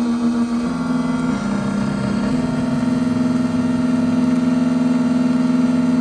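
Triton Plus key cutting machine milling a Hyundai key blade: the spindle motor hums steadily, its pitch stepping a few times in the first couple of seconds as the cutter moves along the blade, then holding steady.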